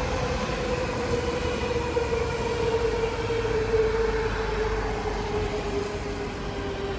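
Stockholm commuter electric multiple unit (SL X60) passing on the tracks: wheels and running noise with a steady electric motor whine that slowly falls in pitch.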